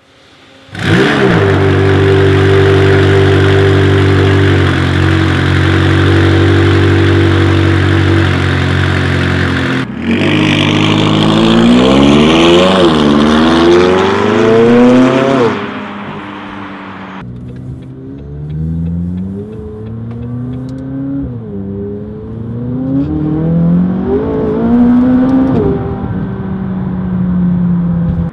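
McLaren 570GT's twin-turbo V8 through Fabspeed sport catalytic converters and a Supersport X-pipe exhaust. It fires up about a second in with a brief flare and settles to a steady idle, then revs hard as the car accelerates along the road. From inside the cabin it pulls through the gears, the revs climbing and dropping back at each upshift.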